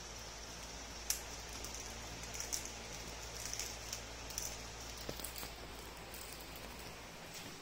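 Faint scattered crinkly ticks and rustles as a small puppy nibbles and noses at the plastic wrapping around the base of a large water jug, over a low steady hum that cuts out near the end.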